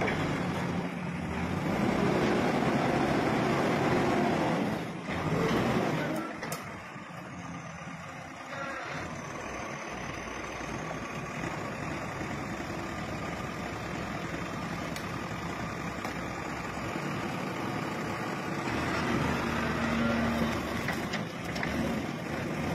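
Diesel engine of a wheel loader running, loudest for the first five seconds and then lower and steady.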